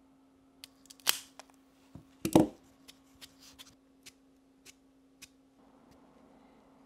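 A few sharp clicks and clacks from cigar tools being handled while the cigar is cut and lit. A sharp click comes about a second in and the loudest clack about two seconds in, followed by a string of light ticks. A steady low hum runs underneath.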